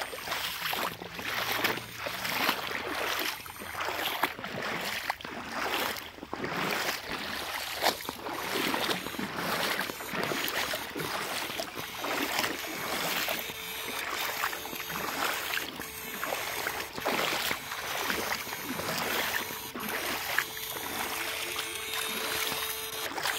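Water splashing and sloshing as people wade through a shallow, stony river, with poles and a dip net sweeping through the water in irregular splashes. About halfway through a steady electrical buzz comes in, from the backpack electrofishing unit.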